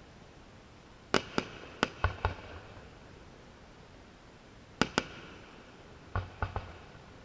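Aerial fireworks shells bursting in the distance: a string of sharp bangs, about ten in all, in three clusters. Five come in quick succession in the first half, two close together about halfway, and three near the end, several with a deep boom beneath the crack.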